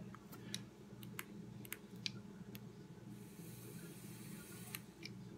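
A few light clicks and taps at a rebuildable tank atomizer's deck as juice is dripped onto the cotton. About three seconds in, a faint hiss lasting a second and a half as the Wotofo Sapor RTA's coils fire and the juice-soaked cotton wicks sizzle off vapor.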